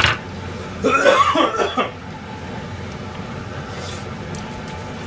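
A person coughing once, about a second in, just after a short click; a low steady hum runs underneath.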